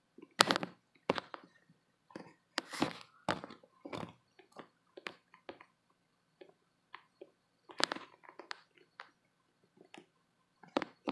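Striped knee tarantula chewing a cricket: irregular crunching and crackling as its fangs work the cricket's body. The crunches come in uneven clusters, loudest about half a second in, around three seconds, near eight seconds and just before the end.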